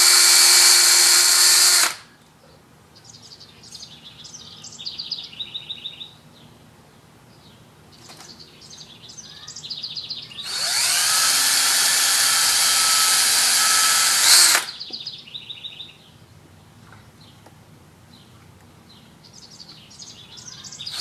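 Electric drill running in two bursts, driving screws into wood: it cuts off about two seconds in, then runs again for about four seconds from the middle, rising in pitch as it spins up. Birds chirp faintly in the pauses.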